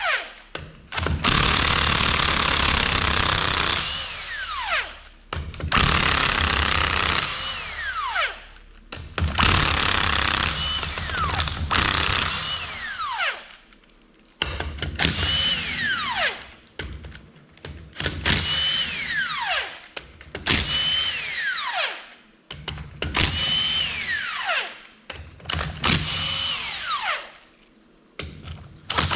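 Cordless impact wrench with a 12 mm socket backing out the transmission's front bearing-retainer bolts one after another. It runs in about nine short bursts, each ending in a falling whine as the motor winds down after the trigger is released.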